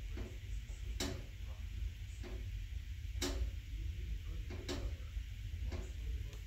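Wood fire crackling in a Regency i2450 wood-burning insert, with sharp pops at irregular intervals of about a second over a low steady rumble.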